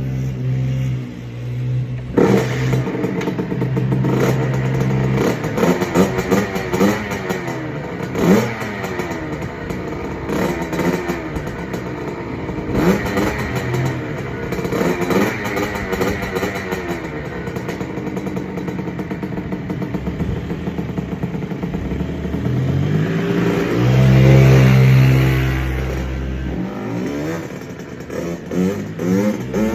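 Kawasaki KX65 two-stroke single-cylinder dirt bike engine idling, with repeated quick throttle blips that rise and fall in pitch. A longer, louder rev comes late on.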